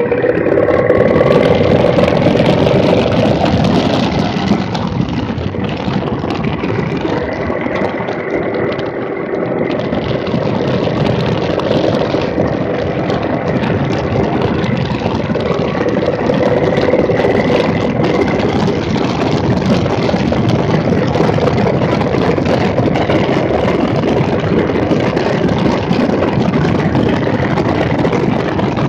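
2017 Triumph Bonneville T100's 900 cc parallel-twin engine running as the motorcycle rides along, with a steady rush of wind noise. The engine note rises and falls a little with the throttle.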